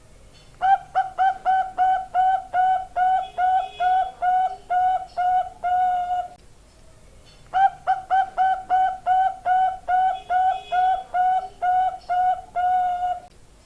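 Zebra dove (perkutut) of the Bangkok line singing its cooing song: two long bouts of rapid, even coo notes, about three or four a second, with a pause of about a second between them.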